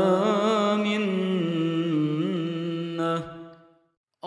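A voice chanting an Arabic supplication, drawing out the closing words 'wa lā minnah' in a long melodic line with wavering ornaments. It fades out about three and a half seconds in, leaving a short silence just before the next phrase begins.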